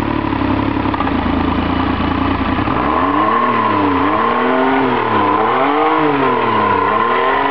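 Rebuilt Evinrude 90 two-stroke outboard running on a water-hose test, shifted into forward gear: it runs steadily at first, then from about three seconds in is revved up and down over and over, about once a second.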